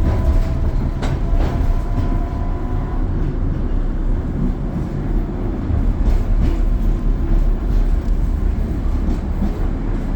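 Tatra tram running, heard from inside the car: a steady low rumble of wheels and running gear with scattered clicks over the rails. A faint whine fades out about three seconds in.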